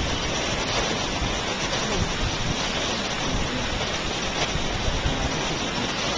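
Steady rushing of Yosemite Falls, the waterfall's continuous spray and falling water.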